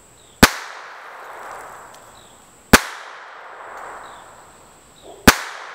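Three single shots from an Armi Galesi .25 ACP (6.35 mm) pocket pistol, spaced about two and a half seconds apart, each a sharp crack followed by a fading echo.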